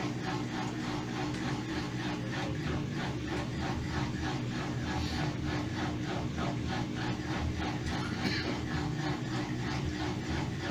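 Mabe washing machine spinning with a loud, rough grinding and a rapid, even pulsing rhythm over a low hum: the sound of transmission bearings in very bad condition, rusted by water leaking past the seal.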